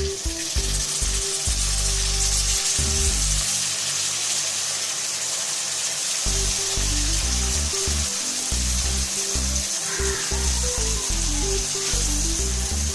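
Diced potatoes sizzling as they fry in oil in a pan, a steady hiss, over background music with a low, stepping melody.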